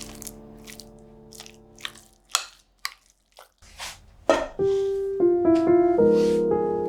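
A held piano chord fades away, then a handful of short, sharp crunches of crisp fried tortilla chips. Solo piano music starts up again past the middle.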